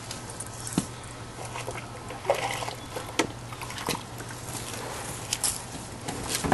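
Footsteps in boots on wet grass: scattered soft knocks and squishes over a steady low hum.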